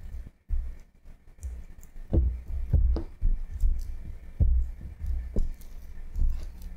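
Silicone spatula pressing and mashing softened butter in a glass bowl, giving a series of soft, dull thuds at irregular intervals.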